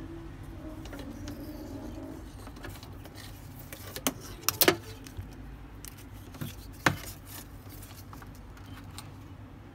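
Charger leads and metal crocodile clips being handled on a battery's terminals: a few sharp metallic clicks and rattles, the loudest cluster just under five seconds in and another near seven seconds, over a low steady hum.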